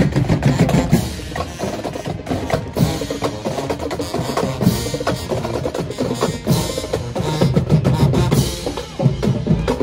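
Marching band drumline playing a loud percussion cadence on snare and bass drums.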